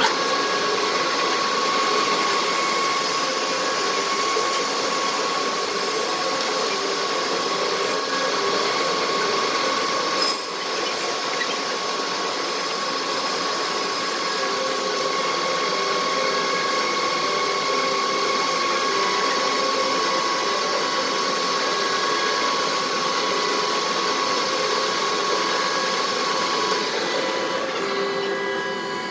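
Metal lathe running steadily while turning a part, with a steady high whine over the machine noise. A single sharp click comes about ten seconds in.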